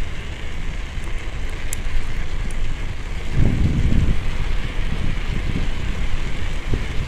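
Wind rushing over the microphone of a camera riding on a moving bicycle, a steady low rumble with a stronger gust about three and a half seconds in.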